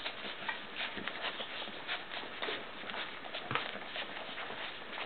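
Puppies nursing from their mother: a steady run of small, irregular wet suckling and smacking clicks, with the soft shuffling of pups jostling for a teat.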